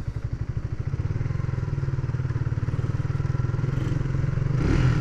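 Small motorcycle engine running with an even, rapid putter.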